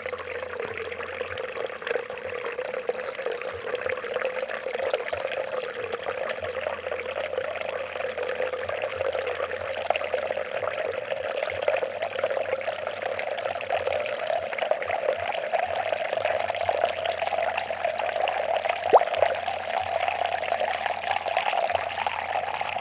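Water trickling and gurgling steadily, its pitch rising slowly over the second half, with one brief click near the end.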